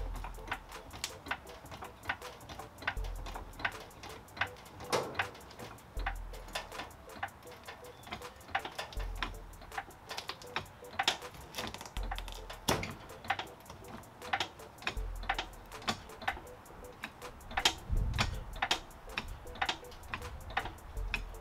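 Floor jack being pumped by its long handle under a car's front end: a steady run of sharp metallic clicks and clacks, several a second, as the jack raises the car.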